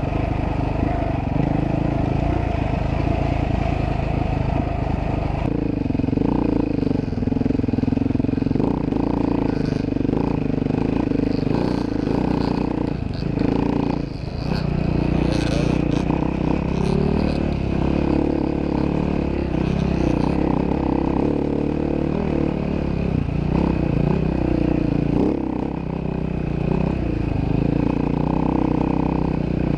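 Dirt bike engine running under throttle while being ridden. Its note changes about five seconds in and dips briefly near the middle as the throttle eases off.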